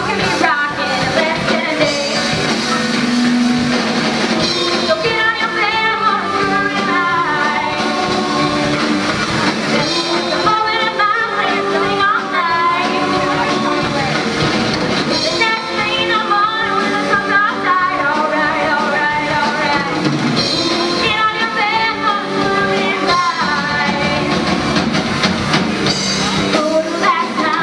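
Rock song played by a band, with a vocalist singing phrases over it throughout.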